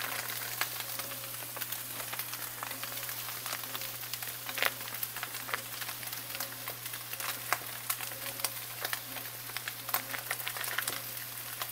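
Ground beef sizzling as it fries in a skillet: a steady hiss with irregular crackles and pops.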